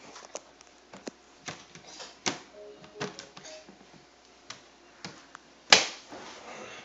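Doors and parts of a toy kitchen being opened and shut by a child: a run of irregular clicks and knocks, with one loud clack near the end.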